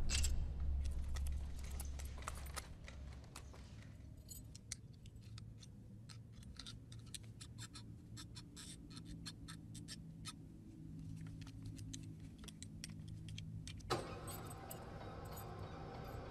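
Metal buckles and fittings clinking in many small, quick clicks as leather restraint straps are fastened and an electrode cable is attached, over a low hum that fades in the first few seconds. About fourteen seconds in there is a single knock, after which a fuller, steady hum sets in.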